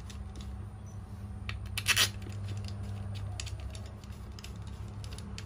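Light metallic clicks and clinks as small brushcutter engine parts are handled and fitted together by hand, with one sharper clink about two seconds in. A steady low hum runs underneath.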